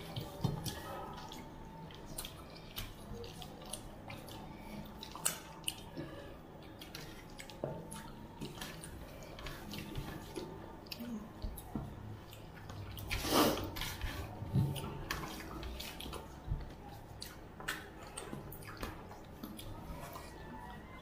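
Two people eating with their fingers from steel plates: rice and curry being mixed and picked up, with many small mouth clicks and chewing sounds, and one louder eating sound a little past halfway.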